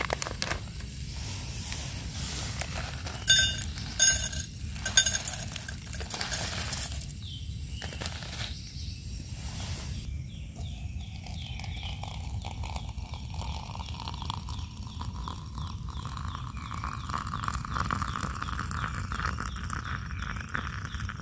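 A few sharp metal clinks from the stainless steel tea strainer and camping mug, then water poured from a kettle through the mesh strainer onto loose tea leaves in the mug, its pitch rising slowly as the mug fills.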